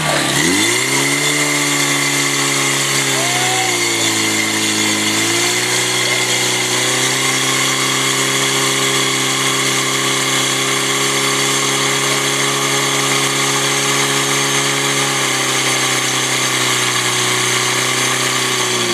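PS 12 portable fire pump's engine running hard, driving water through the attack hoses. Its speed dips and recovers twice in the first few seconds, then holds steady.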